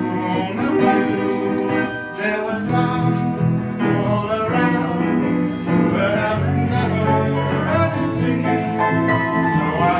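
Amateur band playing a song live: electronic keyboard and drums, with cymbal strikes recurring through the music.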